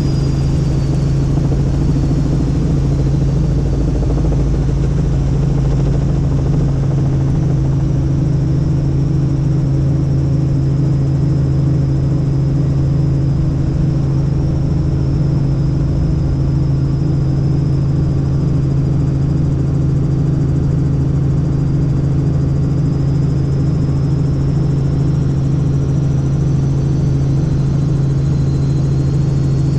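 Helicopter in flight: a steady, loud low drone of engine and rotor, with a faint high whine that drifts gently in pitch.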